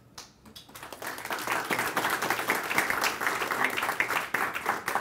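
Audience applause: many people clapping, starting about half a second in and quickly building to a steady level.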